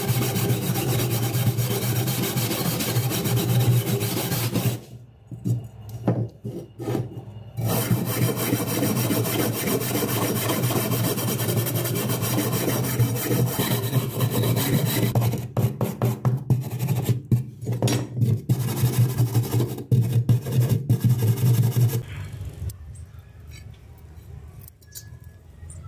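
Steel-bristled hand wire brush scrubbed back and forth over a rusty knife blade lying on a wooden bench, a continuous rasping scrape of rust being brushed off. It breaks up briefly about five to seven seconds in, goes into separate strokes later, and stops about 22 seconds in.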